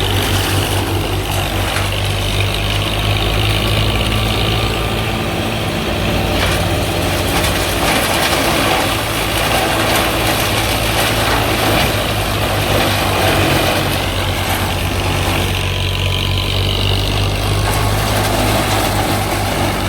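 Heavy diesel engine of a JCB 5CX backhoe loader running steadily at an even speed.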